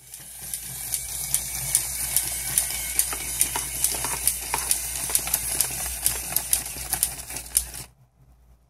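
Battery-powered toy puppy walking: a steady motor whirr with regular clicks about two or three times a second, stopping suddenly near the end.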